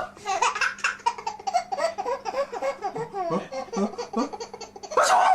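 A baby laughing in a long run of quick, high-pitched giggles, then a loud adult sneeze near the end that sets off the laughing again.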